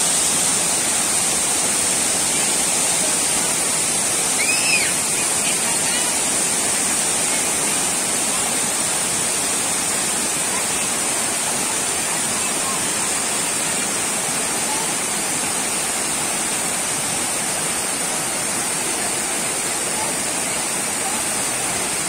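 Waterfall cascading down rock steps into a pool: a steady rush of falling water, with one brief high chirp about four and a half seconds in.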